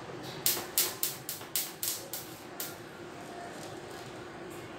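A quick run of about eight sharp metallic taps on stainless steel tubing, roughly three a second, each ringing off briefly, then a steady low hum.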